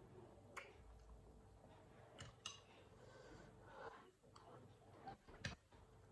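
Faint eating sounds from noodle soup eaten with chopsticks: a few sharp, separate clicks, about half a second in, around two and a half seconds in and near the end, over near silence.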